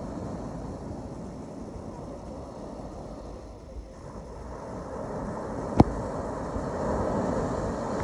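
Steady outdoor rumble and hiss, heaviest in the low range and swelling a little in the second half, with one sharp click a little under six seconds in.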